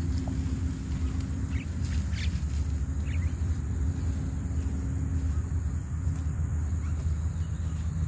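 A steady low outdoor rumble with a constant high thin whine over it, and a few short bird chirps about a second and a half to three seconds in.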